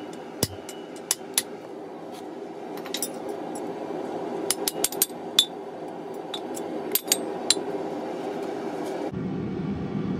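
Hand hammer striking a red-hot 3/4-inch mild steel bar on an anvil: sharp, irregular blows, some single and some in quick runs of several, over a steady background rumble.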